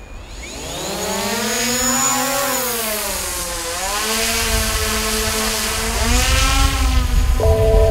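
A camera drone's propellers spin up and take off with a rising whine. The pitch dips about halfway through, holds, then climbs again as the throttle changes. Music starts just before the end.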